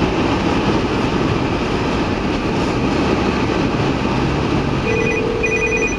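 Steady road and engine noise inside a 2011 GMC Terrain's cabin while driving on snowy roads. About five seconds in, a phone starts sounding an incoming call: a short electronic tone, then a quick run of high beeps.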